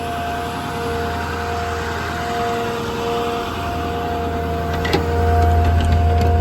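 Truck's 6.4 Power Stroke diesel running steadily with a low rumble and a steady whine over it, getting louder about five seconds in with a small click.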